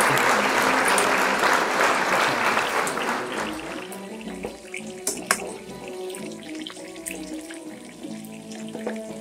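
Pork belly pieces frying in hot oil in a pan: a loud sizzle that dies down after about three seconds to a quieter crackle with scattered pops and one sharp click about five seconds in.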